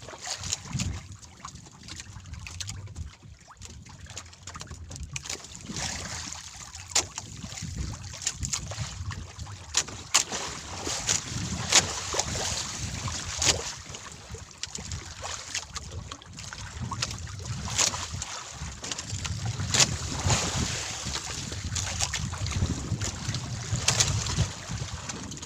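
Wind buffeting the microphone and water slapping against a small wooden outrigger canoe, with sharp irregular knocks and clicks throughout as a hand longline is hauled in and fish are taken off it.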